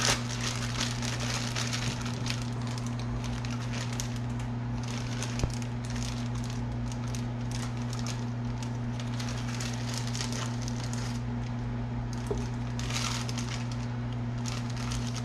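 Clear plastic bag crinkling and rustling in the hands, in irregular bursts, as rod-handle parts are pulled out of it. A single light knock about five seconds in, over a steady low hum.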